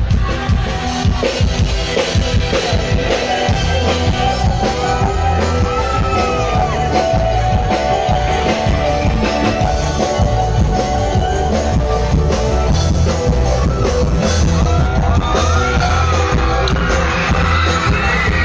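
Live band music played loud, with a singer's voice over drums and guitar.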